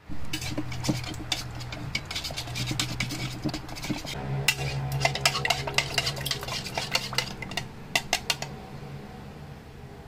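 Metal spoon stirring liquid in a measuring jug, making rapid clinking and scraping against the jug's sides. The clinking stops about eight and a half seconds in.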